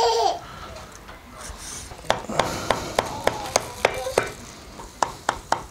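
Chinese cleaver chopping on a thick wooden chopping block: a run of sharp, even knocks about three a second, a short pause, then quicker knocks near the end.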